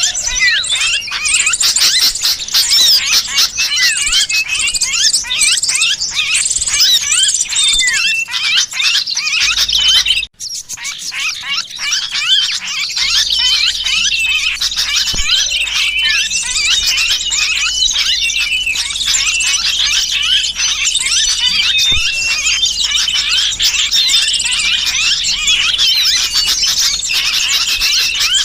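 Bird-lure recording of many small birds calling at once: a dense, loud chatter of rapid high chirps and squeaks, mixing the distress calls of a trapped sooty-headed bulbul (kutilang kejepit) with the agitated clamour of small birds. It cuts out for a moment about ten seconds in, then carries on.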